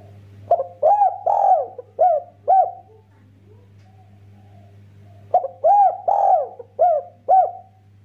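Spotted dove cooing: two phrases of about five notes each, a short note followed by rounded, arching coos, with the third note the longest, the phrases about five seconds apart. A faint steady low hum lies under them.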